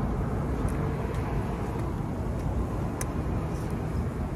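Steady low outdoor rumble of traffic and wind noise, with a few faint sharp smacking clicks as sauce is licked off the fingers.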